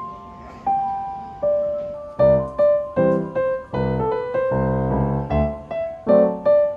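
Background piano music: a slow melody of single notes, joined about two seconds in by fuller chords and a bass line.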